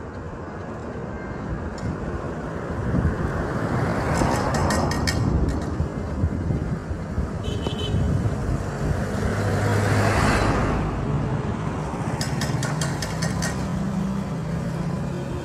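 Road traffic passing close by: vehicles swell and fade as they go by, the loudest a truck passing about ten seconds in. Small engines of a tricycle taxi and a motorcycle run as they approach near the end, with a few short spells of rapid clicking.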